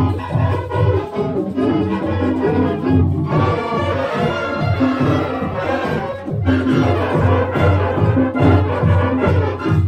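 School marching band playing a brass tune over a steady beat.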